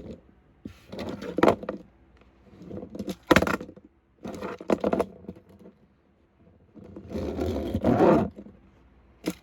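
Toy monster trucks scraping, knocking and clattering on a hard floor as they are launched to flip and land, in several separate bouts with a sharp knock about three seconds in and a longer rough scraping rumble about seven seconds in.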